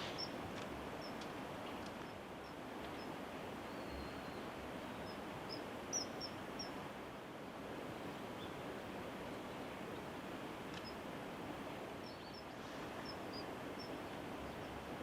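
Short, high bird chirps, a dozen or more scattered through, over a steady rushing background noise.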